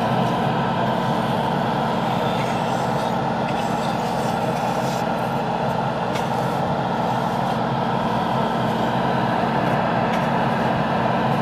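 Airbrush equipment running steadily while primer surfacer is sprayed: a continuous motor hum under a steady rush of air, with a couple of faint clicks.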